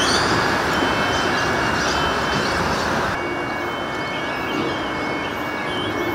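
Electric train of Adelaide Metro's 4000 series running past on the line, a steady rumble of wheels on rail that slowly eases as it moves off. About three seconds in the sound cuts to a slightly quieter steady rumble with a few faint high chirps.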